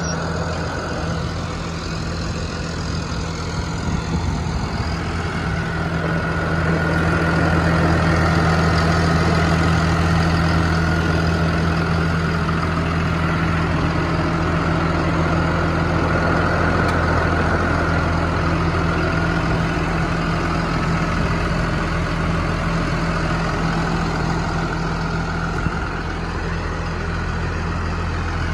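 Deutz-Fahr Agrotron 6180 tractor's six-cylinder diesel engine idling steadily, with a faint whine running above the engine's hum.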